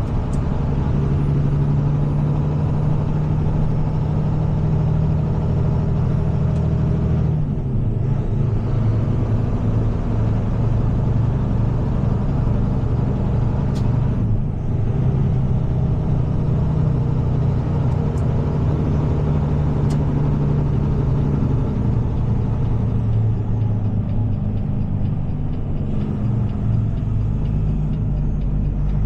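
Heavy tow truck's diesel engine running under load while driving, heard from inside the cab as a steady low drone. The engine note breaks and changes pitch about 7 and 14 seconds in, and again near the end, as it shifts gears.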